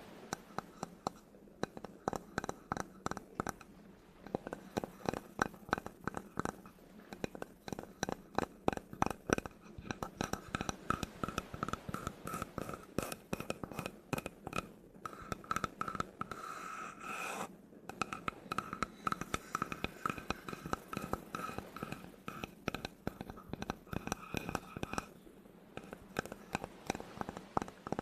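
Rapid, irregular tapping and scratching on wood, recorded close up. The strokes come several times a second with a brief break at about seventeen seconds.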